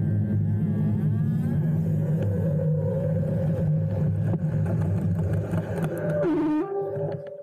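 A motor vehicle's engine running with a steady low hum, which breaks off with a short sliding pitch near the end.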